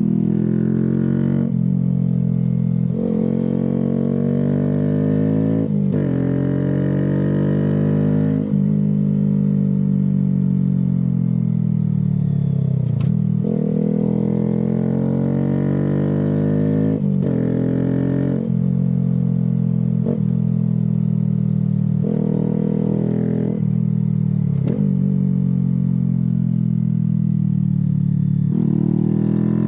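Honda Grom 125's single-cylinder four-stroke engine revving hard through a run of bends. Its pitch climbs and drops again and again, with a short break in the sound every couple of seconds between pulls.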